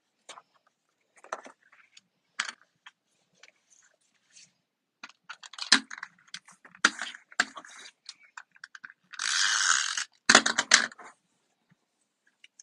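Cardstock being handled on a tabletop: scattered light taps and paper rustles, then a longer scraping swish about nine seconds in, followed by a few quick knocks.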